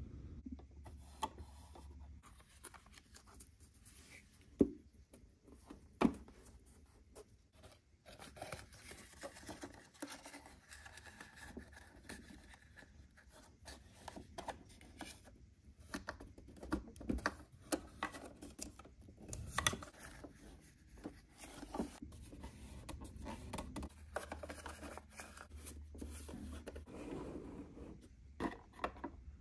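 Close-up handling noises of a small plastic toy kitchen cabinet and paper: rubbing, scraping and rustling as paper lining is pressed into the cabinet, with scattered light clicks and taps from the plastic parts and cabinet doors. Two sharp clicks stand out about five and six seconds in.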